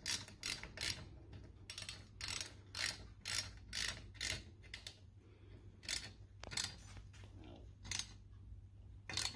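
Ratchet spanner tightening the bolts of a bracket on a metal sofa-bed frame: short bursts of ratchet clicking about three times a second, thinning out to a few single strokes in the second half.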